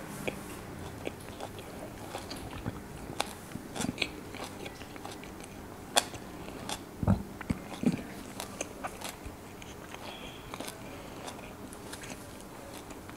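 Close-miked mouth chewing a bite of mutton kebab in white chicken gravy, with irregular wet clicks and smacks. A louder cluster of smacks comes between about six and eight seconds in.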